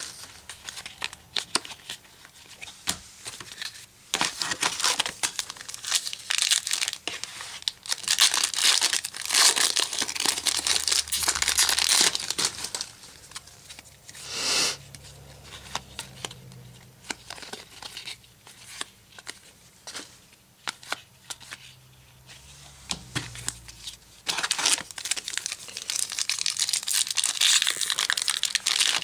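Foil trading-card pack wrappers crinkling and tearing open, in bursts that are heaviest around the middle and again toward the end, with short flicks and clicks of cards being handled in between.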